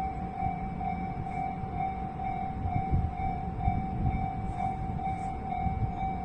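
A Japanese railway level crossing's electronic warning bell ringing in a steady, evenly repeating pulse, the signal that a train is approaching, over a low rumble.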